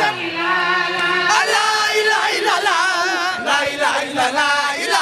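A group of women chanting a Layene Sufi zikr together, their voices wavering on long held notes.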